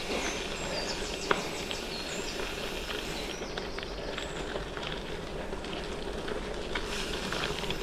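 Steady rolling noise of a gravel bike on the move on Goodyear Connector gravel tyres, with a sharp click about a second in and a few faint high chirps.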